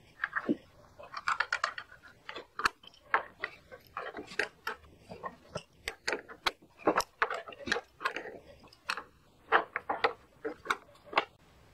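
Irregular metal clicks and small knocks as the nut is tightened back onto the push mower's front wheel axle bolt, with some clicks coming in quick little runs.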